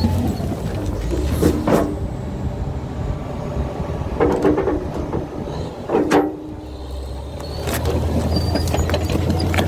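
CAT D8 bulldozer's diesel engine running steadily under load, easing off briefly about two-thirds of the way through and then picking up again. Three short metallic squeals from the steel tracks cut through, about one and a half, four and six seconds in.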